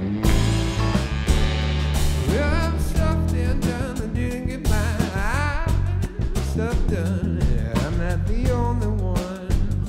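Live funk jam band playing: electric guitar, saxophone, drum kit and bass guitar, with a wavering melody line over a steady beat.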